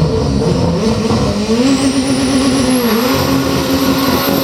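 1986 Ford RS200 Evo rallycross car accelerating hard: its engine note climbs from about a second in, dips briefly about three seconds in, then climbs again, with a thin high whine rising above it.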